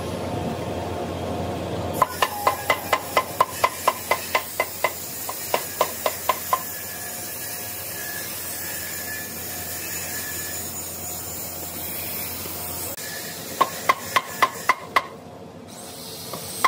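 Rapid sharp taps, about five a second, in two runs: about twenty in the first half and six more near the end, each with a short ring. Under them is a steady hiss.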